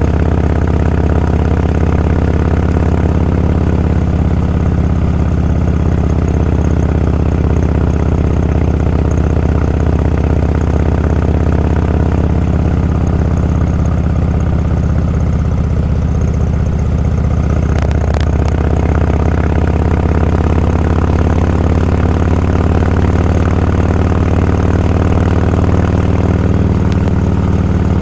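Motorcycle engine running steadily at an even pitch, with a short click about 18 seconds in.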